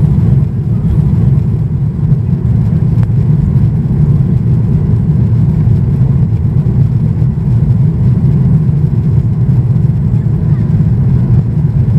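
Boeing 737-800 cabin noise during climb-out: the CFM56-7B engines and the airflow make a loud, even, low rumble.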